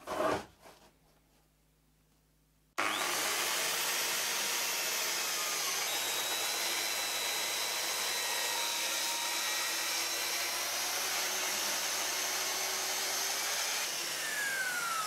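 A short knock, then about two seconds of near silence. A Festool TS 55 plunge-cut track saw then starts abruptly and runs steadily, cutting along a guide rail through a softwood board. Near the end the cut finishes and a falling whine is heard as the blade spins down.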